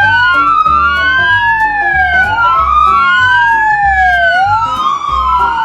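Police siren wailing: two tones slide up and down and cross each other about every two seconds, over background music with a steady beat.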